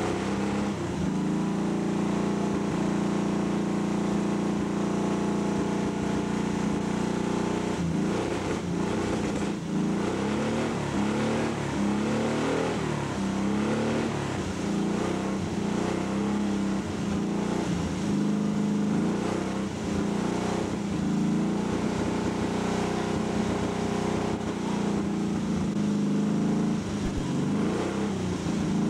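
Small button accordion being played: held reedy chords at first, then a tune with notes changing about twice a second from about eight seconds in.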